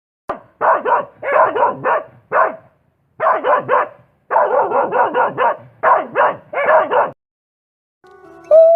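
A dog barking repeatedly, in quick runs of two to four barks, stopping about seven seconds in.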